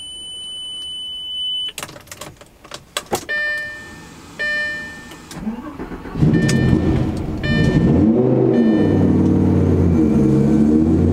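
A held electronic tone, a few clicks and repeated short beeps. Then, about six seconds in, the twin-turbo Lamborghini Gallardo's V10 starts after standing for six days and runs loudly, the revs rising and falling a couple of times.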